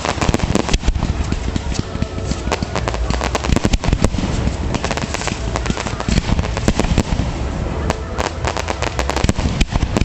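Fireworks display: a dense, continuous barrage of bangs and crackling shell bursts, many reports a second with no pause.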